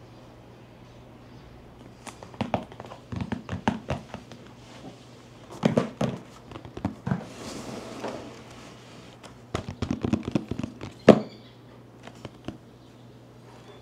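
Hands handling a cardboard box and its packaging: scattered taps, knocks and thunks in irregular clusters, with a short rustle about halfway through.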